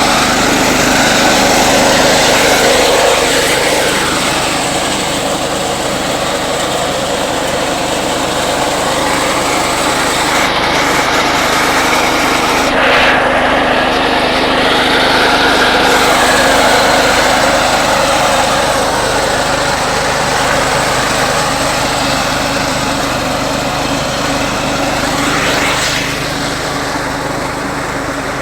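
Small engine of a walk-behind crop reaper running continuously and loudly at working speed.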